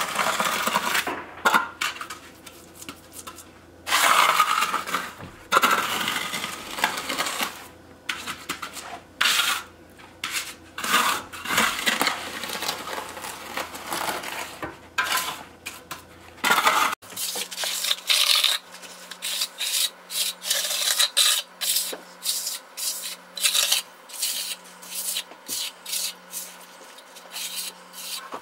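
Steel trowel scraping and smoothing wet concrete in a wooden form, in repeated rasping strokes. About halfway through, the strokes become shorter and quicker.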